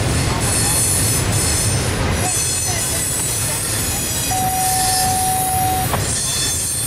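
Double-stack intermodal freight cars rolling past with a steady rumble of wheels on rail, and a high whine of wheel flanges squealing on the tight curve. A single clear squeal tone is held for about a second and a half a little past the middle.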